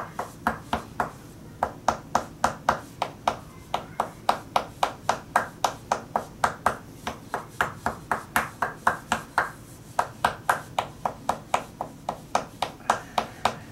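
Tok sen massage: a wooden mallet striking a wooden wedge held against the body, giving sharp wooden knocks in a quick, even rhythm of about four to five a second, broken by a few brief pauses.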